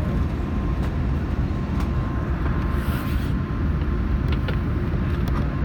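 Steady low rumble of an Airbus A380 heard inside the passenger cabin at a window seat over the wing, with a faint steady tone above it.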